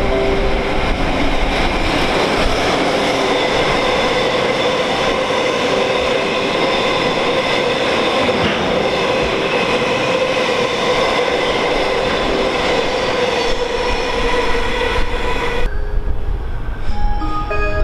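Freight train of tank wagons passing close at speed: a continuous loud rumble of wheels on rail with steady ringing whine tones over it. About 16 seconds in it cuts off abruptly, and short chime-like tones start near the end.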